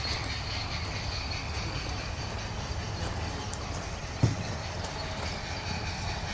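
G-scale model train (a Bachmann 4-6-0 locomotive hauling coaches) running along garden-railway track with a steady low rolling noise. A single short thump about four seconds in.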